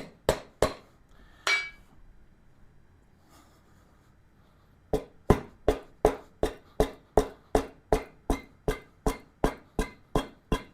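A hammer lightly tapping, with a ringing note, to knock a motorcycle wheel rim free of its tire. There are a few taps, a pause of about three seconds, then a steady run of two to three taps a second.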